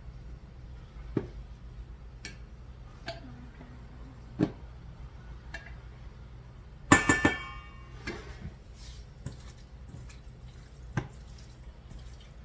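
Kitchen utensils and dishes being handled: scattered light taps and knocks, with one louder, briefly ringing clatter about seven seconds in.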